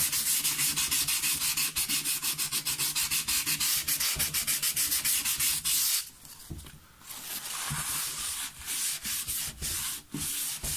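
400-grit wet/dry sandpaper rubbed in quick circular strokes over a rusty steel bracket coated in motor oil, sanding the rust off. The rubbing stops for about a second and a half around six seconds in, then resumes a little softer.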